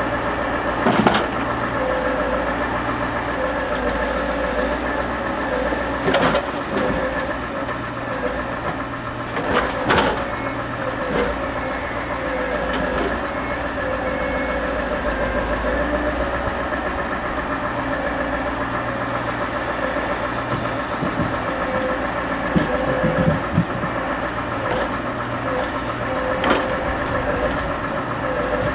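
Scania R580 timber truck's V8 diesel running steadily to power the loader crane's hydraulics, with a steady whine over the engine. A few sharp knocks come through as the grapple handles the pine logs and sets them on the load.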